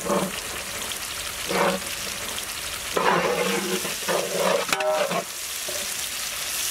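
Sliced bell peppers, onions and carrots sizzling in hot oil in a large metal cooking pot, with a perforated metal ladle stirring and scraping against the pot in repeated strokes. There is a brief ringing metallic note about five seconds in.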